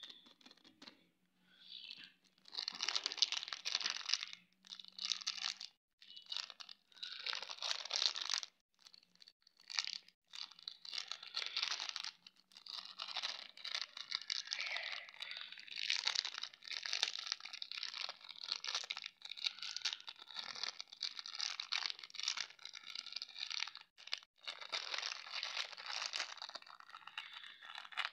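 Thin clear plastic candy bag crinkling and rustling in irregular bursts as fingers squeeze and handle it, with the sugar candies inside pressed about.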